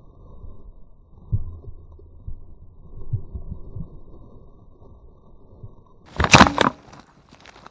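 Muffled knocks and rustling close to a body-worn camera as it is jostled over dry leaf litter, with a loud, short crackling burst about six seconds in.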